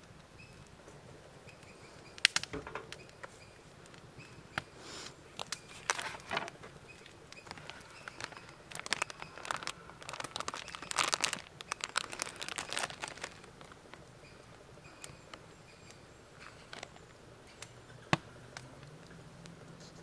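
Plastic food packaging being handled and set down on a wooden cutting board: crinkling of a plastic-wrapped meat tray and a noodle packet in bursts over several seconds, with a few sharp knocks as items are put down, the loudest near the end.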